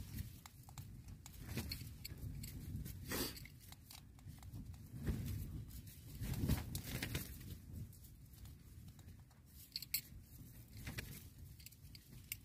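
Faint rustling and scattered clicks of a small rechargeable air pump being handled, with a few soft thumps; no pump motor runs, which the owner puts down to a battery that has not held its charge.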